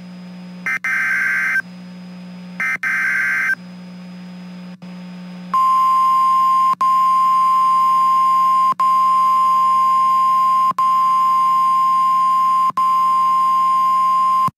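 NOAA Weather Radio alert signal: two short screechy digital SAME header bursts about a second apart, then the steady, loud 1050 Hz warning alarm tone held for about nine seconds, marking a new weather warning coming on the broadcast.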